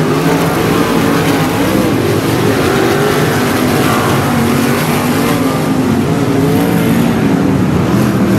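A field of 305 winged sprint cars racing on a dirt oval: several 305-cubic-inch V8 engines running at once, loud and steady, their pitch rising and falling as the cars go through the turns and down the straights.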